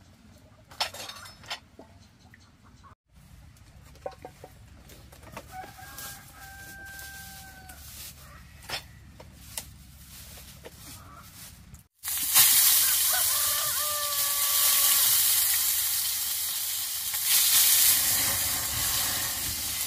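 A rooster crows in the background, once in the quiet first part among a few light clicks and taps. About two-thirds through, a loud steady sizzling sets in as food drops into hot oil in a pan over a wood fire and the oil flares up in flames, while the rooster crows again over it.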